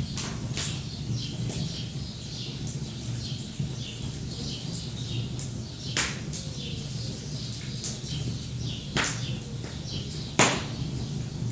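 Wood fire crackling, with a few sharp pops, the loudest near the end, over a steady low rumble, while small songbirds chirp and twitter throughout.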